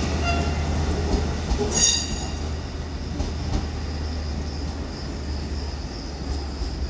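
Train moving along the track through the station, a steady low rumble of wheels and running gear. A brief high-pitched wheel squeal comes about two seconds in, and the rumble then slowly grows quieter.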